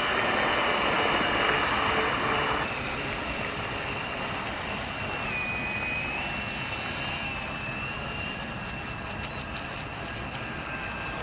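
Radio-controlled model sports boat's motor running at speed with a high, steady whine. It is loudest in the first two or three seconds, with a hiss of spray, then a little quieter as the boat runs away; the pitch dips briefly about five seconds in and comes back up.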